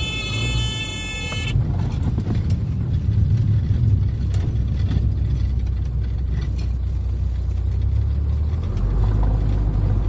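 Cessna 172's stall warning horn sounding a steady tone that cuts off about a second and a half in. It is followed by a steady low rumble of the engine and airframe, with scattered short knocks as the plane touches down and rolls out.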